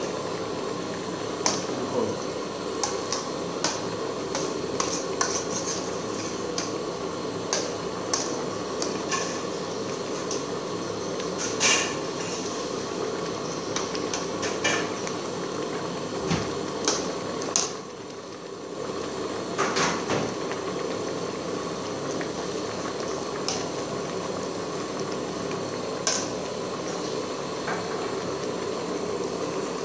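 Metal ladle stirring a pot of boiling soup, clinking and scraping against the metal pot in scattered knocks, over the steady bubbling of the boil. The clinks come mostly in the first two-thirds and thin out near the end.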